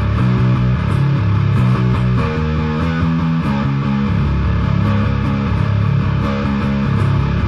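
Instrumental rock/metal music with a bass guitar playing a riff of low, changing notes, over a steady beat of cymbal ticks.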